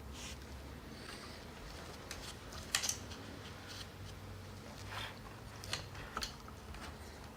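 Faint handling noises of PC parts and packaging: a few light clicks and rustles, the sharpest about three seconds in, with more a couple of seconds later.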